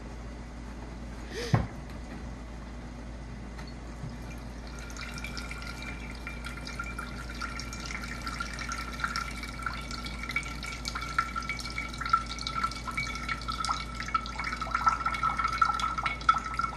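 A kitchen knife strikes the coconut shell once with a sharp knock about a second and a half in. From about five seconds in, coconut water trickles in a thin stream from the pierced coconut into a bowl already holding liquid: a steady pitched trickle with small splashes.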